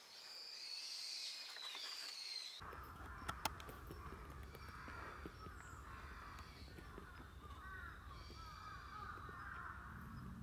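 Birds calling repeatedly outdoors. About two and a half seconds in, a steady low rushing noise comes in under further short calls, with a couple of sharp clicks soon after.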